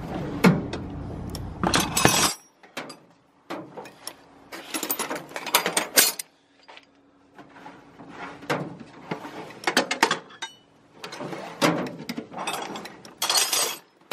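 Steel hand tools (wrenches, sockets and extensions) clinking and clanking in irregular bunches as they are picked up, shuffled and set down in a metal tool chest drawer. A low rumble under the first two seconds stops suddenly.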